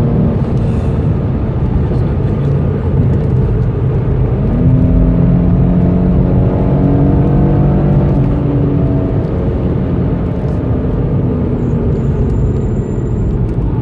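Car engine pulling hard at track speed, heard from inside the cabin over heavy road and tyre rumble. About four and a half seconds in the engine note steps up in pitch and keeps climbing, then eases off and drops after about nine seconds.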